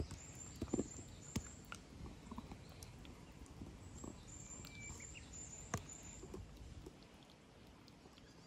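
A cat eating from a plastic bowl: a few sharp clicks and smacks, the loudest about a second in and again near six seconds. Behind them a small bird gives two runs of short, high chirps.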